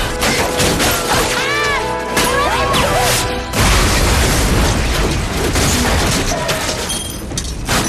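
Film sound effects of a proton-glove blast going off: wavering whistling tones, then a sudden loud explosion about three and a half seconds in, over background music.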